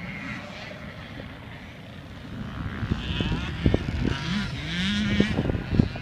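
Suzuki LTZ400 quad bike's single-cylinder four-stroke engine running, growing louder from about halfway as it revs, its pitch rising and then holding near the end. Several sharp low thumps are mixed in during the second half.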